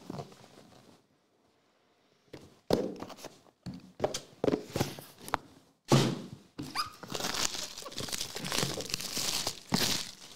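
Cardboard trading-card boxes handled on a table: a few sharp knocks as boxes are picked up and set down, the loudest about six seconds in, then several seconds of sliding and rustling cardboard.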